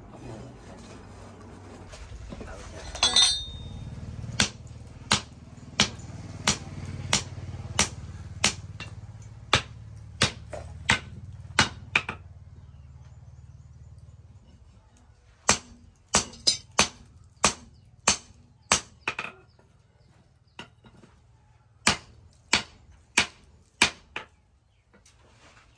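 Hand hammer striking a red-hot steel bar on a small steel anvil post, forging the end of a crowbar. There are two runs of sharp blows, each about one to two a second, with a pause of a few seconds between them. A brief clatter comes about three seconds in, and a low hum lies under the first run.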